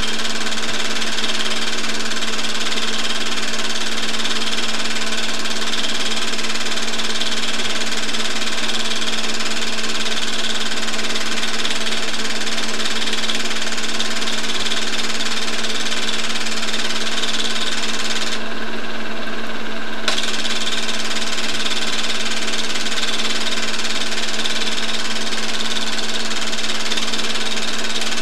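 Home-movie film projector running: a steady mechanical whirr with a constant hum, its upper hiss dropping out briefly about two-thirds of the way through.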